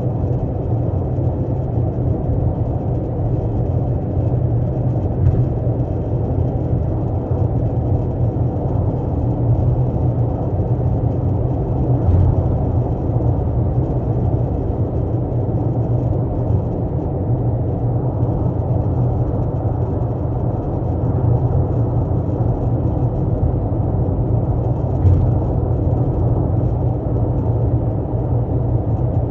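Steady low rumble of a 12th-generation Toyota Corolla Altis, with a brief knock about twelve seconds in and another near the end.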